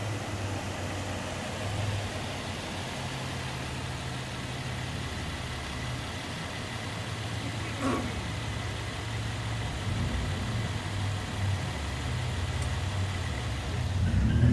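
A car engine idling steadily, with one short click about eight seconds in. Near the end a second car's engine grows louder as it drives up close.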